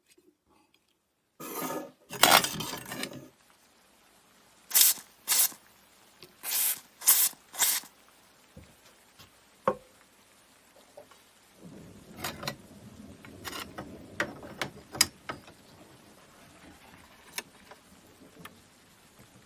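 Hand scraping strokes on a rusted knife during restoration: one longer stroke, then a quick run of about six short ones, followed by light clicks and handling noise.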